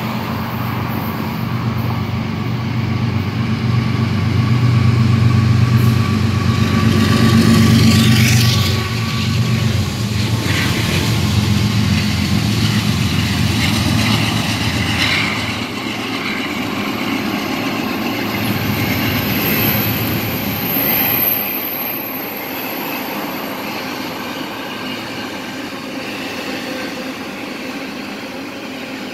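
Canadian National diesel freight train passing close by: a heavy low engine hum swells to its loudest about five to eight seconds in as the locomotives go by. The hum then gives way to the steady rumble of double-stacked container cars rolling along the rails, which eases off somewhat after about twenty seconds.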